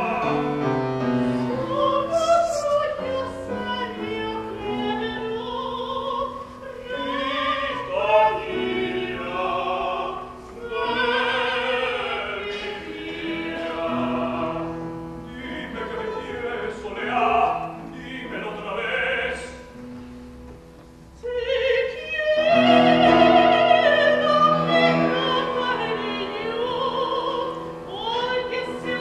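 Classically trained operatic singing with wide vibrato, accompanied by piano. The singing pauses briefly about two-thirds of the way through, then comes back louder.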